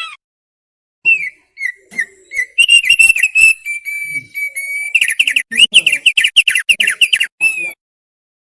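Opior paruh tebal (thick-billed heleia) singing. It gives a burst of clear whistled notes, then a held whistle, then a fast run of down-slurred notes that stops abruptly near the end.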